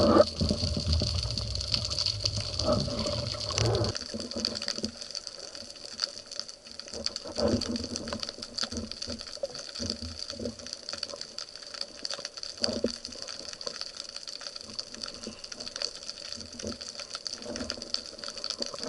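Underwater ambience: a steady hiss peppered with many small crackling clicks, with a heavy low rumble that stops about four seconds in.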